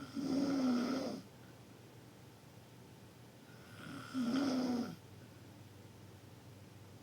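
Loud snoring: two snores about four seconds apart, each lasting about a second.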